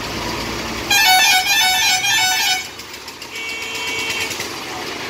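A vehicle's musical horn playing a quick stepping tune for about a second and a half, followed about three seconds in by a plain steady horn honk, over the low rumble of idling traffic.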